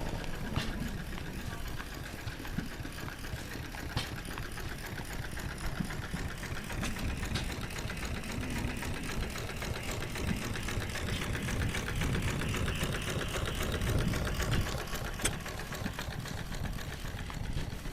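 An engine running steadily with a rapid, regular beat.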